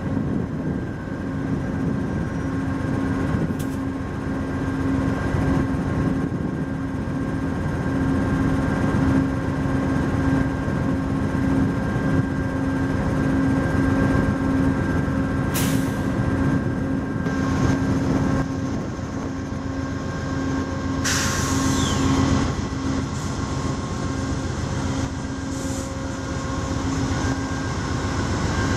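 Amtrak passenger train standing at a station platform, its diesel locomotive running with a steady hum. Short hisses of air escaping about 16 and 21 seconds in.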